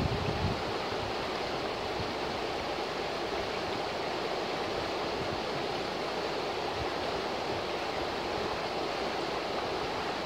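A river rushing over a shallow rocky riffle: a steady, even white-water rush. A short low rumble comes right at the start.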